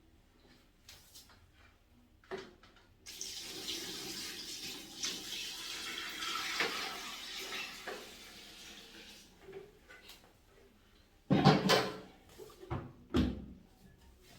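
Tap water running for about six seconds, starting about three seconds in, as water is run in to rinse clothes in a mini portable washing machine. Near the end come two loud thumps.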